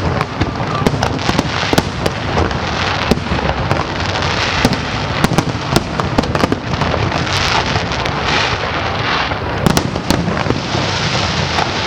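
Aerial fireworks display going off continuously: dense crackling with many sharp bangs in quick succession, overlapping one another.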